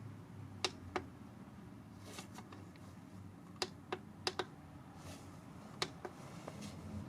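Buttons on a portable tire inflator's control panel being pressed to switch the pressure unit and set the target pressure: a series of about nine sharp, irregularly spaced clicks.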